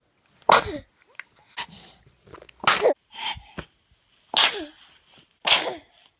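An infant sneezing again and again: a quick run of short, sharp sneezes about a second apart, four of them loud, with smaller ones between.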